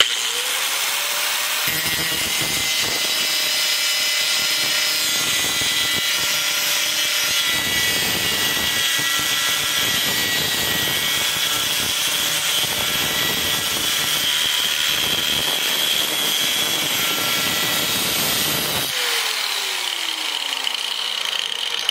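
A 4.5-inch angle grinder's cut-off wheel spins up and scores a cut line into square metal tubing clamped in a vise, with a steady whine and grinding hiss. About three seconds before the end the grinder is switched off and its whine falls away as the wheel spins down.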